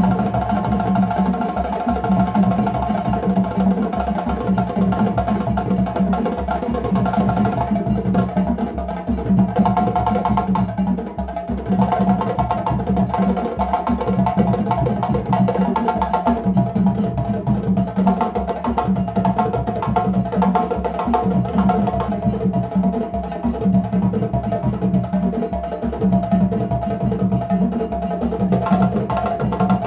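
A djembe ensemble playing live: several hand drums struck together in a dense, steady rhythm that runs without a break.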